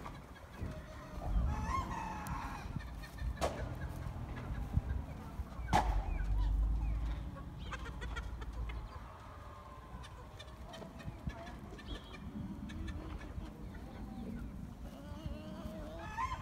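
A free-ranging flock of chickens and roosters clucking and calling at intervals, with two sharp knocks and stretches of low rumble.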